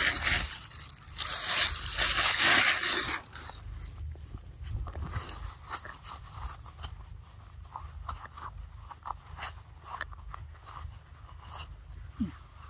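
A macaque chewing and biting papaya close by: a run of small, irregular crunches and clicks. A loud rustling noise fills the first three seconds.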